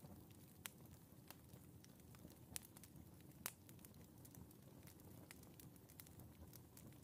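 Wood fire burning faintly, with scattered sharp crackles and pops at irregular moments over a low rumble.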